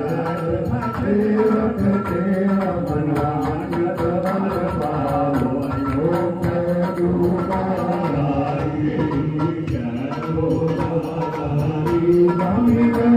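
Devotional chanting sung by a man into a microphone and played over loudspeakers, with a drum beating along.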